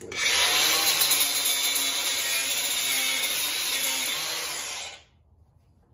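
Makita 4.5-inch variable-speed angle grinder, fitted with a Manpa Multi-Cutter belt housing and a 4-inch flexible rubber-backed sanding pad, running and sanding fine-grit paper into a wooden log, removing wood quickly. The sound cuts off abruptly about five seconds in.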